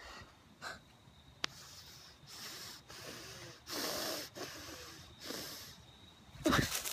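A person breathing heavily close to the microphone, several noisy breaths with pauses between them. There is a sharp click about a second and a half in, and a short, louder vocal sound falling in pitch near the end.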